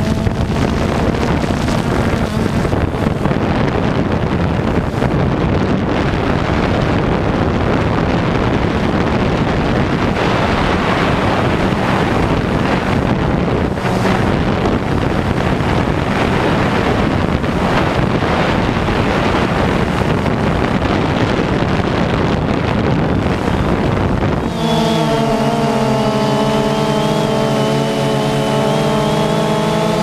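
DJI Phantom 2 quadcopter in flight: wind buffeting the camera microphone over the steady hum of the drone's motors and propellers. About 25 s in, the wind noise drops away and the motors' steady multi-tone whine comes through clearly, with a high thin whine creeping slowly upward near the end.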